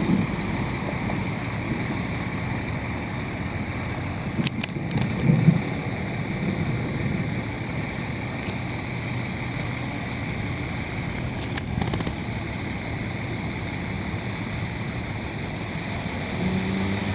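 Steady rush of city street traffic mixed with wind on the microphone, with a couple of faint clicks.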